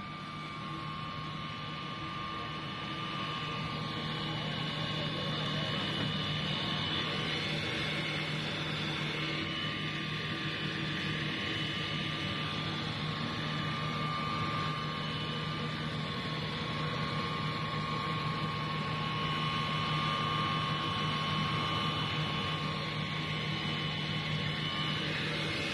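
DLG135 single-screw floating fish feed extruder running steadily as it turns out pellets: a constant machine hum with a low drone and a few steady higher whining tones.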